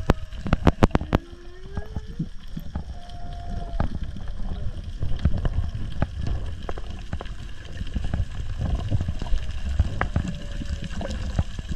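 Water heard through an underwater camera: a muffled low rumble of surge, with scattered sharp clicks and a quick cluster of them in the first second.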